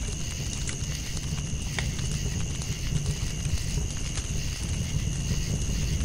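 Campfire burning: a dense low rumble with frequent sharp crackles and pops from the burning wood, over a steady high-pitched tone in the background.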